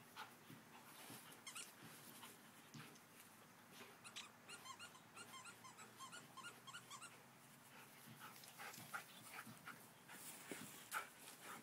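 Faint dog whimpers and high squeaks from a standard poodle and a young labradoodle puppy at play, with a run of quick repeated squeaks midway.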